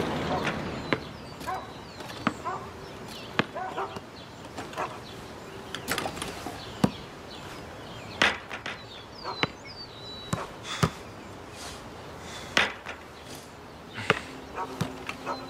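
A basketball being shot and bouncing: about fifteen irregular hard knocks and thuds as the ball hits the backboard, rim and pavement, roughly one a second.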